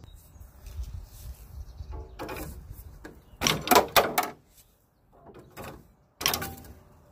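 Metal clanks and rattles from handling the copper tubing and brass fittings of an AC condenser unit being scrapped. A cluster of sharp clanks comes about three and a half to four seconds in, and another near the end.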